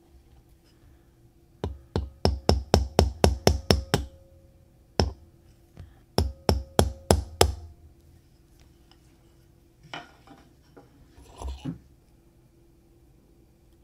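A watchmaker's hammer tapping a staking-set punch to drive a pocket watch's balance staff out of its roller table, the roller held in a roller remover tool. There is a quick run of about ten sharp metal taps at roughly four a second, a single tap, then about seven more, followed by fainter handling of the tool near the end.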